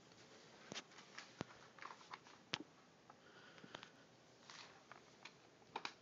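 Near silence with faint scattered clicks and rustles of handling and movement, about a handful spread irregularly; the Roomba is not yet running.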